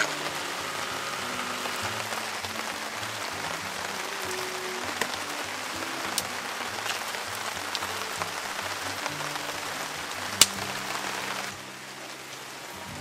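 Steady rain falling, with sharp drop strikes here and there and one loud one near the end, under soft background music. The rain noise drops away near the end.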